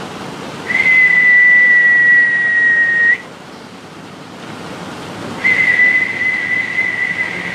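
Two long, steady, high whistled notes of about two and a half seconds each: the first starts about a second in, and the second starts a little past halfway and runs to the end.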